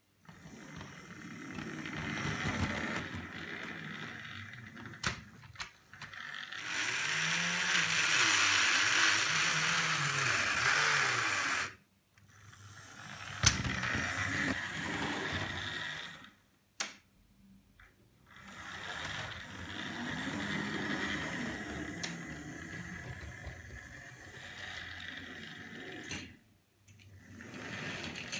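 Tri-ang R.153 0-6-0 saddle tank model locomotive's electric motor whirring as it runs over tinplate-style Super 4 track, wheels clattering over rail joints and points, stopping and starting three times. Single sharp clicks of the solenoid point motors throwing the points between runs.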